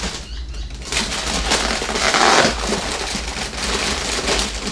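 Plastic wrapping and foam packing crinkling and rustling, with small crackles and clicks, as parts are handled and pulled loose inside a cardboard box. Louder about two seconds in.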